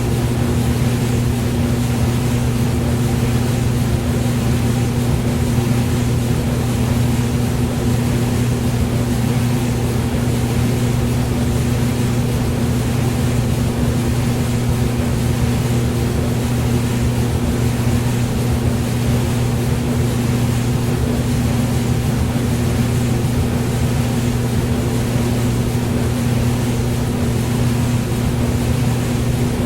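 Hair dryer running steadily: an even rush of air over a constant low motor hum.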